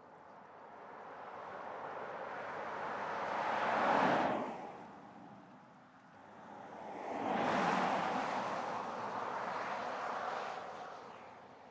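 Range Rover Velar diesel SUV driving past, mostly tyre and engine noise: it swells to a quick pass about four seconds in, then a second approach peaks around eight seconds, holds briefly, and fades.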